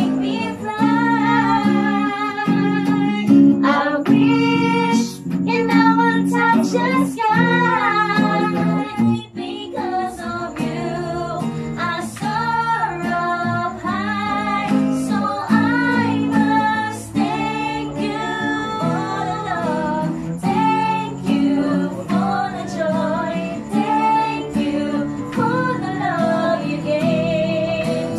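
A small group singing a song, women's voices in front, to strummed acoustic guitars.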